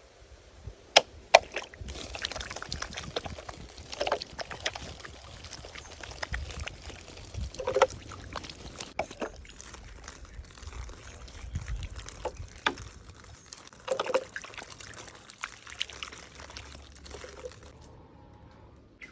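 Water being poured and trickling in irregular spurts, with a couple of sharp clicks about a second in.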